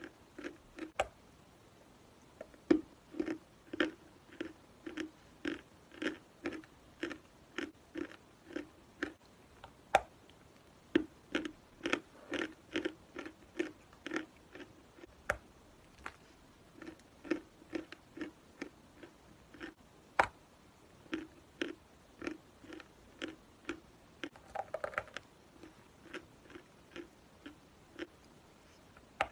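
Dry edible chalk being bitten and chewed close to the microphone: crisp crunches at about two a second, with a few sharper snapping bites along the way.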